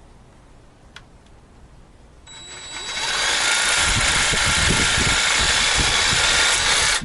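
DeWalt DCS331B 20V cordless jig saw with a metal-cutting blade starting up about two seconds in with a high whine, then cutting into wood: loud and steady with a rapid chatter underneath. It stops abruptly near the end. The owner says the blade won't stay in the saw's toolless clamp.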